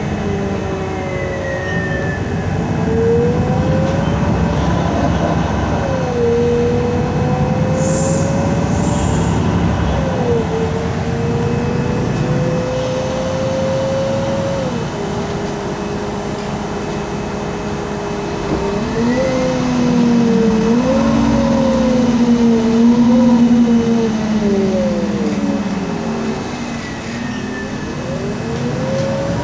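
Inside a MAN Lion's City G articulated CNG bus under way: the MAN E2876 gas engine running with road rumble, and a whine that climbs in pitch and drops back suddenly several times as the ZF Ecolife six-speed automatic gearbox changes up.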